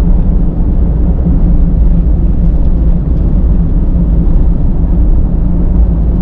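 Steady low rumble of a Suzuki Every kei van on the move, with engine and road noise heard from inside the cabin.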